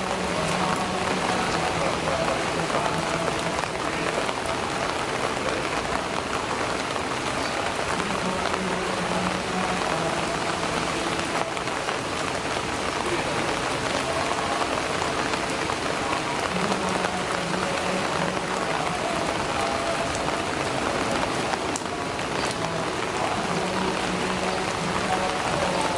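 Steady rain falling on broad lotus leaves, an even patter with no break. A faint low tone comes and goes behind it every several seconds.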